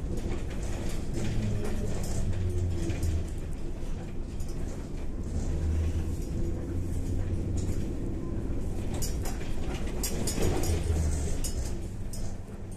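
Cabin of a moving Kyiv-12.03 trolleybus: a steady low hum and road rumble that swell and ease a few times, with light clicking and rattling from the body.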